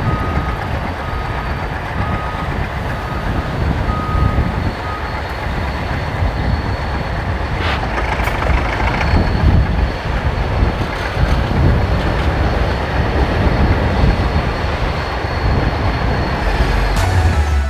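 Heavy vehicle engine running with a steady low rumble, while a reversing alarm beeps at an even pace for about the first five seconds.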